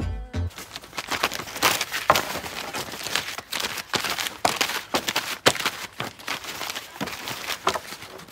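Printed paper photos being ripped off a wooden fence and torn and crumpled: a run of irregular rustling tears and crinkles, one sharper rip about two seconds in.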